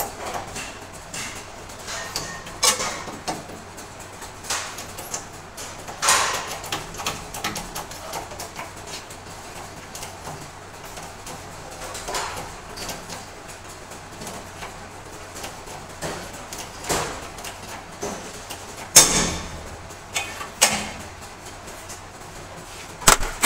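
Hand-pumped hydraulic bottle jack in a small shop press, worked by its lever to press on an electric motor's shaft: irregular metallic clicks and clanks, with a few sharper knocks.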